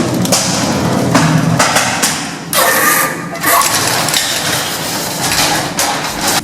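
Loud mechanical clattering and rumbling from an old 1970s gated lift, in three long stretches, cutting off suddenly at the end.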